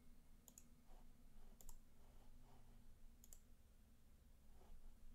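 Very faint computer mouse clicks: three quick click-and-release pairs, each a second or more apart, over a faint low hum.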